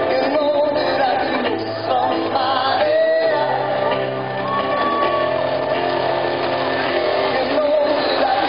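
A song with a singing voice over a steady bass line, played over loudspeakers for a fireworks display.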